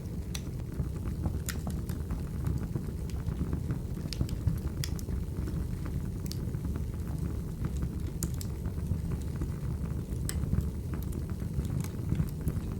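Wood fire burning in a fireplace: a steady low rumble with irregular sharp pops and crackles scattered through it.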